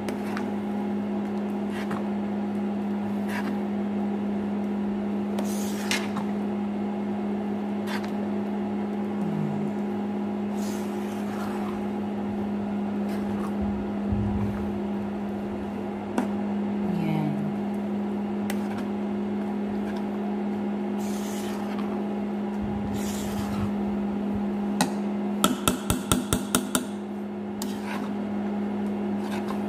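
Induction cooktop humming steadily under a pan of thick, bubbling black sticky-rice biko, while a metal spatula stirs and scrapes through it with scattered clicks and soft thuds. Near the end comes a quick run of about eight sharp taps.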